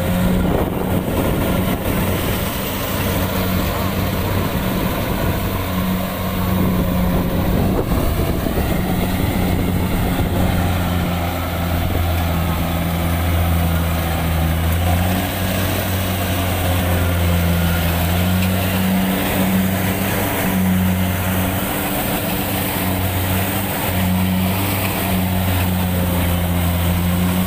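Rice combine harvester's diesel engine running steadily in a muddy paddy: a loud, low drone that shifts slightly in pitch now and then.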